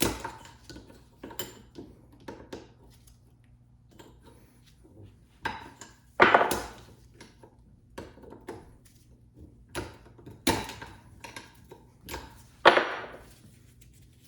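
Hammer blows on the metal yoke and universal-joint parts of a double cardan driveshaft, working a joint apart. The strikes come irregularly, half a dozen hard ones with lighter taps between, each ringing briefly.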